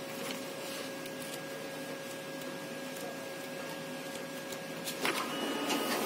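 Canon iR5000 photocopier running a print job: a steady machine hum with a constant faint tone. About five seconds in it grows louder and a higher whine joins.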